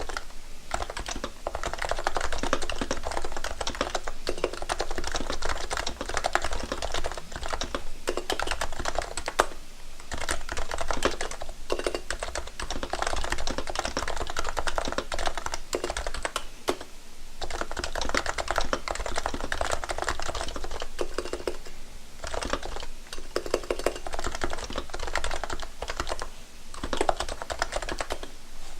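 Typing on a Realforce For Mac keyboard with Topre electrostatic capacitive switches: a fast, steady stream of keystrokes, broken by short pauses a few times.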